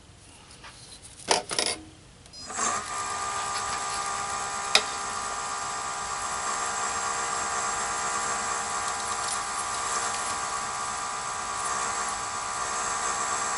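A couple of sharp clicks, then about two and a half seconds in the Nova DVR-XP wood lathe's direct-drive motor starts and runs steadily with a whine of several fixed tones. A turning tool takes a light cut on the spinning plastic disc, and one more sharp click comes a couple of seconds after start-up.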